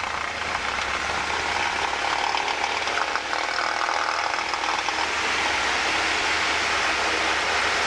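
Cessna 172's piston engine and propeller running at takeoff power, heard inside the cabin as a steady, loud drone that grows slightly louder as the plane accelerates down the runway.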